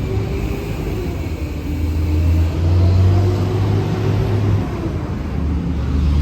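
A vehicle engine running steadily with a low hum, its pitch and level rising and falling slightly and loudest about halfway through.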